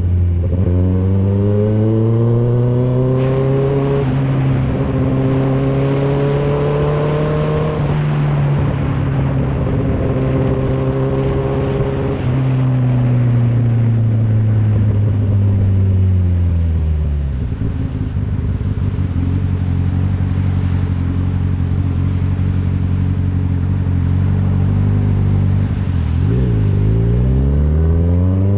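Motorcycle engine on the move, pulling up through the gears with its pitch climbing in steps, then slowing down about halfway and holding low. It dips briefly and climbs again near the end, over a steady rush of road and wind noise.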